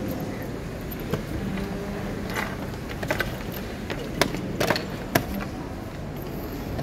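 Blitz chess moves: plastic chess pieces set down on the board and digital chess clock buttons slapped, heard as several short, sharp clicks and knocks at uneven intervals over steady background noise. The loudest knock comes about five seconds in.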